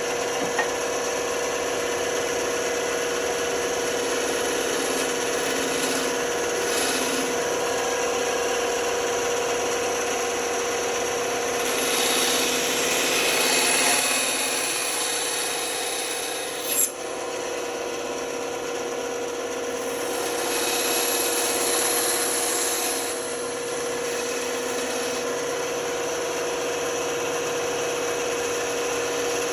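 Woodworking power tool running with a steady motor hum while wood is worked against it, the rasping rub of the wood swelling louder twice, with one sharp knock a little past halfway.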